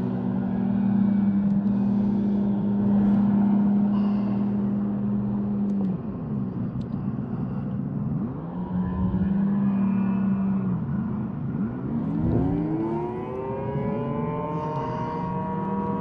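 Outdoor tornado warning siren sounding in a test: a loud, steady wail that dips in pitch and swings back up a few times, then climbs sharply near the end and holds at a higher pitch.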